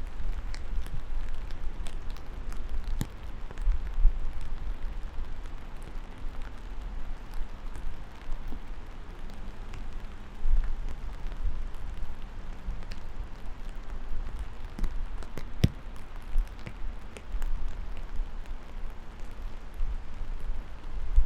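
Steady rain falling, with scattered sharper drops and drips ticking through it and a low, uneven rumble underneath.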